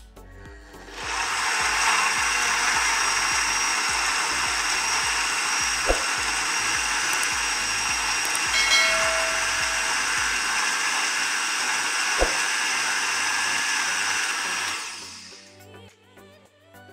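Countertop blender running steadily, blending apple chunks, ice cubes and water into juice; it starts about a second in and stops near the end, with two sharp knocks partway through.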